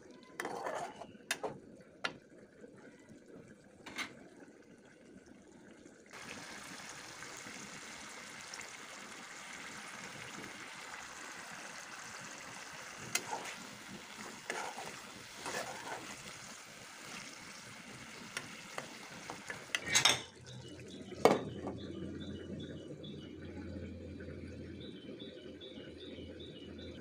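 Metal spatula scraping and tapping in an aluminium pot while Indian olives are fried in spice paste, over a steady sizzle. About 20 seconds in, two loud clanks as a glass lid is set on the pot, then the frying goes on as a muffled sizzle under the lid.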